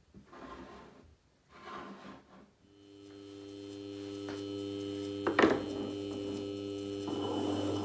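Faint handling rustles of a metal fixture, then the electric motor of a belt-driven flat lapping machine hums steadily as its polishing disc spins. A single sharp click comes about halfway through, and the sound grows rougher near the end.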